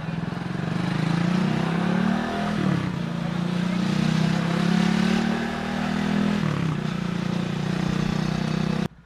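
Motorcycle engine running under way over a steady rushing noise, its note dipping briefly twice, about two and a half and six and a half seconds in. The sound cuts off suddenly near the end.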